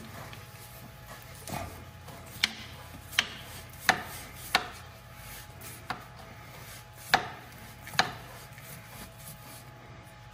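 A strap wrench being worked back and forth on the hydraulic oil filter of a 1971 Bobcat M600, clacking sharply about eight times at irregular intervals. The filter is stuck and won't turn; the owner wonders if it is stuck on its O-ring.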